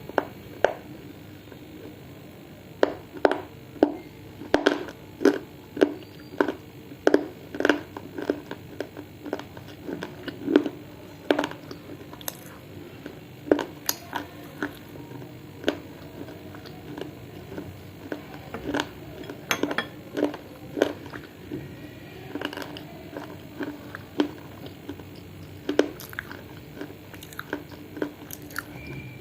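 A person chewing hard, dry clay in the mouth, with sharp crunches at about two a second for the first several seconds, then more spaced out.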